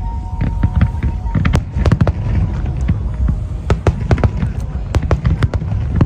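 Aerial fireworks display: many sharp bangs and crackles in quick, irregular succession over a continuous low rumble of bursting shells.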